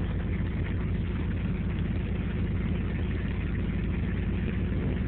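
Pickup truck engine idling steadily, a low, even rumble.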